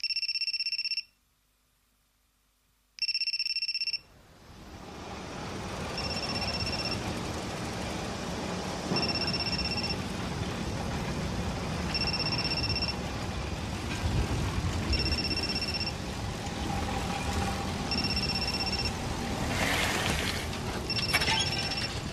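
A cell phone ringing with a plain electronic ringtone: one steady beep about a second long, repeating every three seconds. The first two rings sound alone over silence; from about four seconds in, a steady low background rumble comes up and the rings go on more faintly over it.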